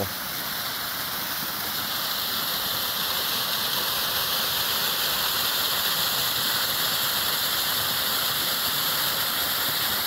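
Small waterfall pouring down a narrow rock cleft, a steady rushing hiss of falling water that grows a little louder over the first few seconds.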